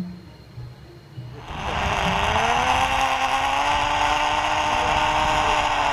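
Zip-line trolley pulleys running along a steel cable. About a second and a half in, a loud whirring whine sets in over a rushing hiss; its pitch rises as the trolley picks up speed, then holds steady.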